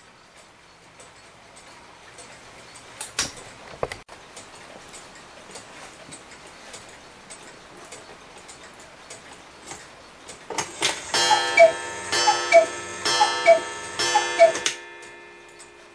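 Vintage Regula-movement August Schwer cuckoo clock ticking, with a single knock about three seconds in. Near the end the clock strikes: its bellows pipes sound the falling two-note cuckoo call four times.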